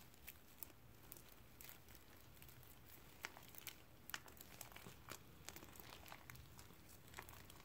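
Faint crackling and small irregular pops of fluffy slime (school glue, shaving cream and borax) being squeezed and pulled apart by hand; the slime is still sticky.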